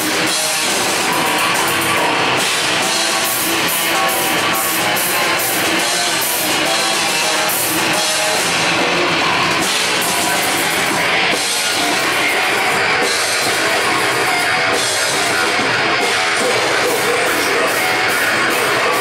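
Heavy metal band playing live: electric guitars and a drum kit, loud and unbroken, with frequent cymbal hits.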